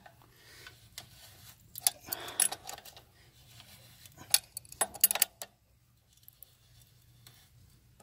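Adjustable wrench clinking on a motorcycle's rear axle nut as it is tightened down, in clusters of sharp metallic clicks about two seconds in and again around four to five seconds in.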